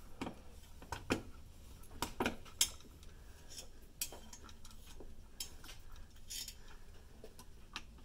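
Screwdriver turning the spring-loaded mounting screws of an AMD stock CPU cooler, giving irregular small metal clicks and clinks as the bit seats in the screw heads and turns.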